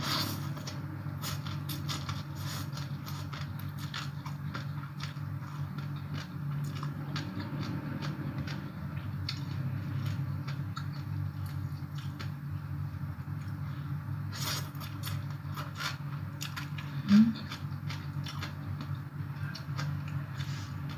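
Close-up chewing of crisp shredded green papaya salad, many small crunching clicks as it is bitten and chewed, over a steady low hum. A short voiced 'mm' about seventeen seconds in.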